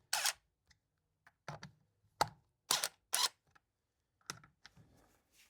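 A handful of separate, sharp clicks and clacks, irregularly spaced: tools and the plastic starter housing being handled while the chainsaw's starter screws are driven in.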